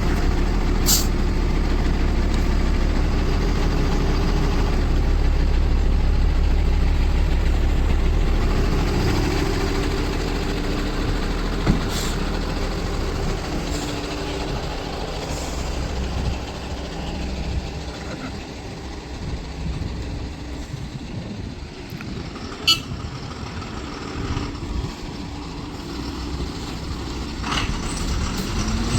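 Heavy diesel engine of construction machinery running steadily, louder for the first several seconds and then easing, with two sharp clanks about eleven seconds apart.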